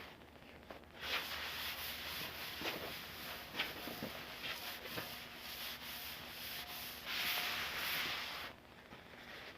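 Rag wiping lubricant over the freshly ground steel top of a welding table: a continuous rubbing and scrubbing that starts about a second in and stops shortly before the end, loudest near the end.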